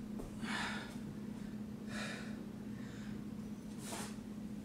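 A woman breathing hard from exertion mid-exercise: three breaths, roughly one every two seconds, over a steady low hum.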